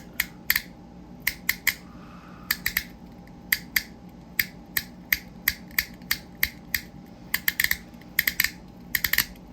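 Detent clicks of a BM Dial telephone-dial fidget toy being turned by hand: a run of sharp, crisp clicks in small irregular groups with short pauses between them.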